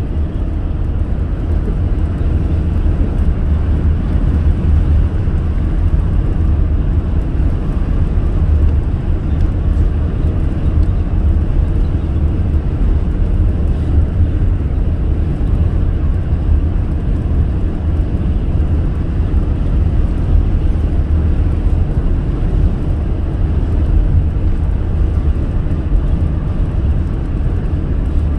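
Car driving at speed on an expressway: a loud, steady, low rumble of tyre and engine noise with no changes.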